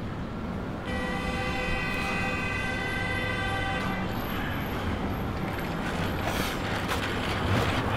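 Steady low rumble of street traffic. A sustained pitched whine sits over it from about a second in and stops abruptly about three seconds later, followed by a few short rustles near the end.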